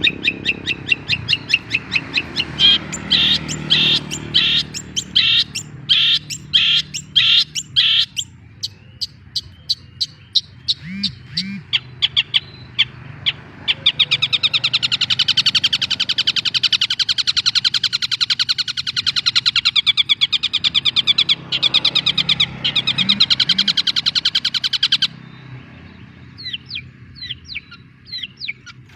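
Long-tailed shrike singing: runs of sharp, quickly repeated high notes, then a fast, continuous chattering trill from about halfway that cuts off suddenly, followed by scattered sharp calls.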